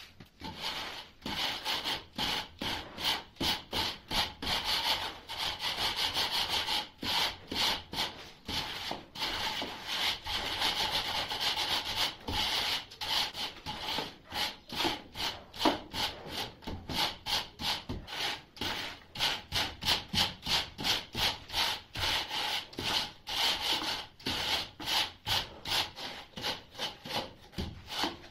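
Metal straightedge scraped back and forth across a bed of damp sand-cement mortar, a rhythmic gritty scraping of about two to three strokes a second, as the floor screed is levelled for tiling.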